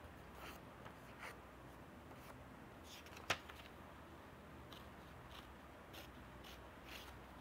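Scissors cutting paper: faint, irregular snips with paper rustle, and one sharper click about three seconds in.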